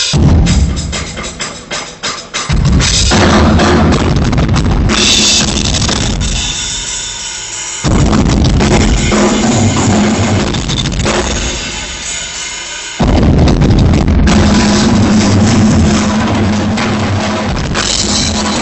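Drum kit played live and hard: heavy bass drum, snare and cymbals, in loud driving passages. It drops to thinner fills and comes back in at full force about 8 and 13 seconds in. Heard loud and coarse through a phone's microphone.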